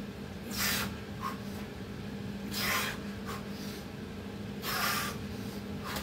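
A man exhaling hard three times, about two seconds apart, breathing heavily while doing burpees. A steady low hum runs underneath.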